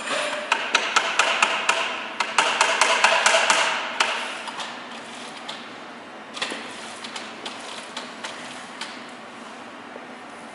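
A quick run of light, sharp knocks or taps, about four or five a second, for a few seconds, then a few scattered taps.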